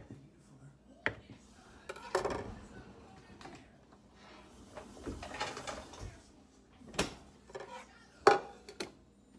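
Kitchen handling sounds: a knife clacking on a plastic cutting board, and a plastic container and a plate being picked up and moved about. There are a few sharp clacks, about a second in and twice near the end, and stretches of scraping and rustling in between.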